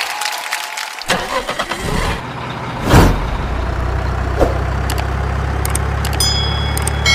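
Sound-effect vehicle engine starting about a second in, then idling with a steady low hum. A loud whoosh comes about three seconds in, and high chiming tones near the end.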